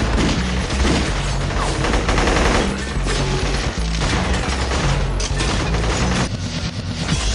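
Rapid gunfire over music with a steady bass line.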